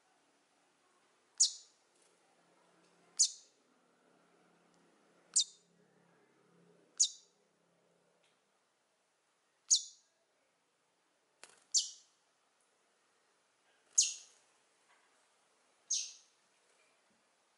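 Short, high bird chirps, eight of them, one about every two seconds, each a single sharp chip that quickly fades.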